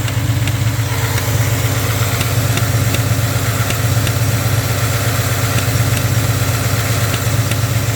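Ford F-150 5.0 V8 idling steadily with a faint, irregular ticking about once or twice a second. The ticking comes from a faulty throttle body, heard with the airbox removed.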